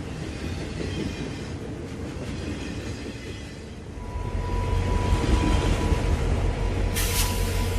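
Train sound effect: a rumbling that fades over the first few seconds, then a locomotive running with a low rumble and a steady hum from about four seconds in. A short hiss of air comes near the end.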